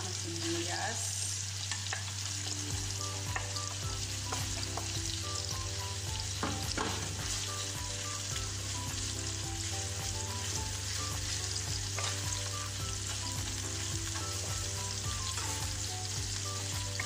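Hot oil sizzling steadily in a nonstick frying pan around strips of ginger, as sliced onion is pushed in and stirred with a wooden spoon.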